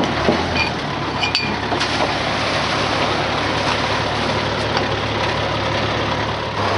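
An engine running steadily, with a few light clinks in the first two seconds. Right at the end the engine gets louder.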